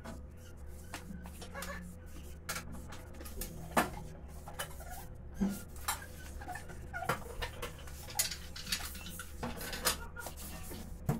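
Dishes and pots clinking and knocking as they are put away into kitchen cupboards: scattered light clatters and clicks, over a steady low hum.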